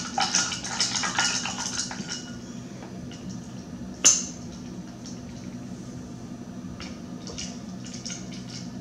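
A straw stirring a vitamin drink mix in a glass of water, clinking and scraping against the glass and fading out over the first two seconds. A single sharp click comes about four seconds in, then a few faint ticks.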